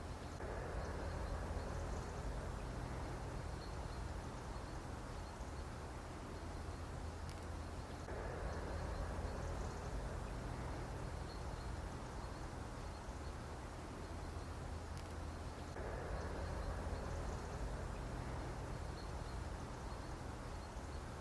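Mosquito buzzing over a steady low hum, the buzz swelling and fading about every eight seconds as if the insect passes close to the microphone and away again.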